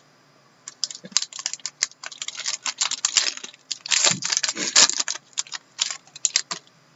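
Card packaging crackling and rustling as hockey cards are worked loose from their box and handled: a rapid, irregular run of crinkles and clicks.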